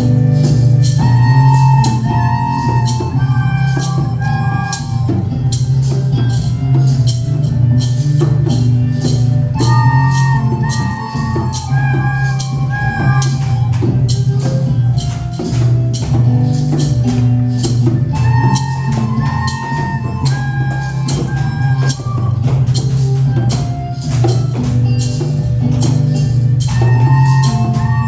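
Music with a steady percussion beat under a shifting melody.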